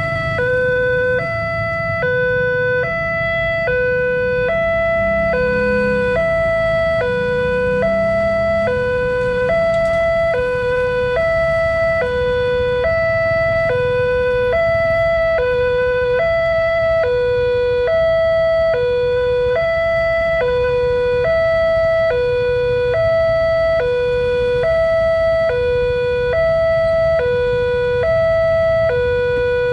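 Railway level-crossing warning alarm ringing continuously: an electronic two-tone signal alternating high and low notes, a little more than once a second. It warns that a train is approaching. Underneath is the low hum of waiting motorcycles' engines.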